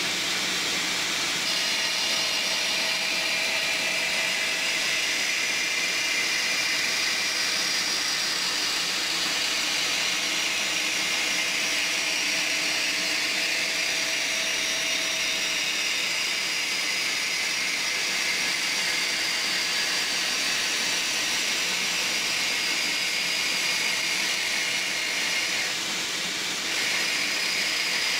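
Vertical band saw with a half-inch bi-metal variable-tooth blade cutting 3/16-inch 5052-H32 aluminium plate: a steady hissing cutting noise that eases off briefly near the end.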